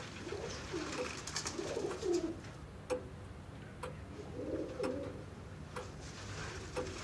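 Pigeons cooing in low, repeating phrases, about four times, with scattered sharp clicks between them.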